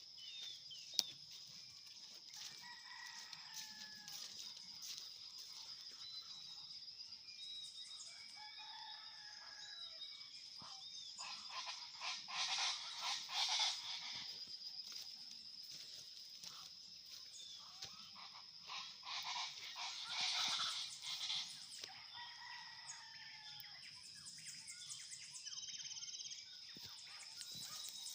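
Rooster crowing twice, about twelve seconds in and again around twenty seconds, among short chirps of smaller birds, over a steady high-pitched drone.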